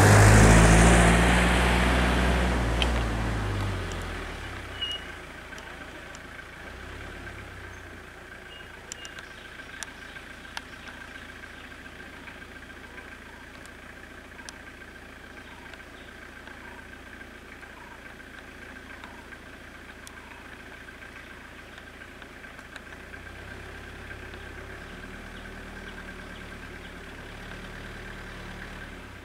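Idling car engines close by, loud for the first few seconds and then fading to a faint low rumble that grows again near the end. A steady high tone and a few small clicks run underneath.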